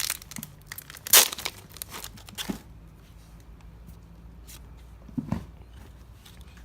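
A trading-card booster pack's foil wrapper being crinkled and torn open, a quick run of sharp crackles with the loudest rip about a second in, then quiet.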